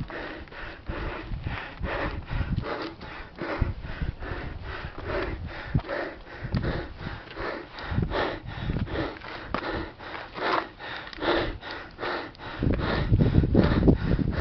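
A hiker's heavy breathing close to the microphone: quick, even in-and-out breaths, the panting of someone out of breath after a hard, steep climb.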